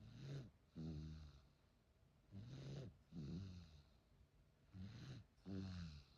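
An eight-month-old baby snoring quietly in sleep: three breaths about two and a half seconds apart, each made of two short, buzzy snores in quick succession.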